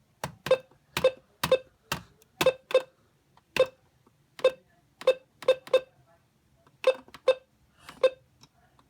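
A series of short, sharp clicks with a brief pitched ring to each, about sixteen of them at uneven intervals of roughly half a second.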